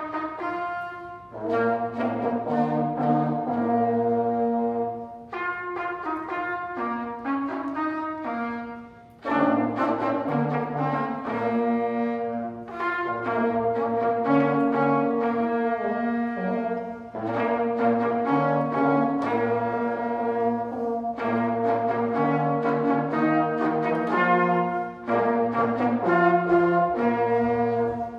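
A young brass quartet of two trumpets, a trombone and a French horn playing a tune together in held notes, with short breaks between phrases, the clearest about nine seconds in.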